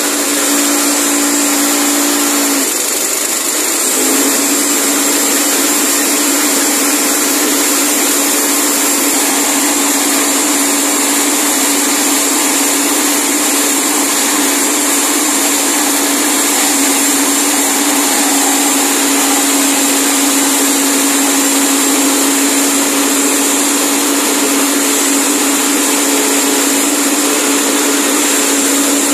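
Forage chopper driven by a small petrol engine, running steadily at speed with a high whine from the spinning blades while elephant grass is fed in by hand and chopped. The engine note dips briefly about three seconds in.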